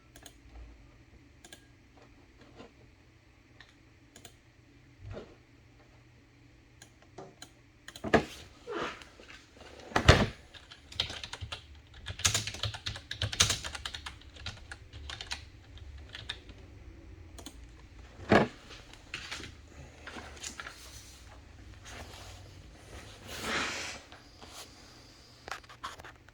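Clicks and taps of typing on a computer keyboard, irregular and busier in the second half, with a few louder knocks.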